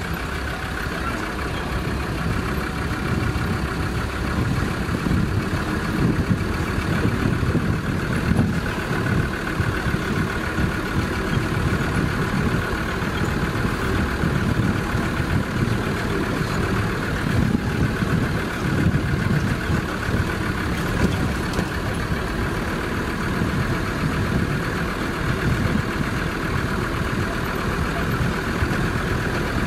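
Safari vehicle's engine running steadily as the vehicle drives along behind the pack, with a continuous rumble that rises and falls a little.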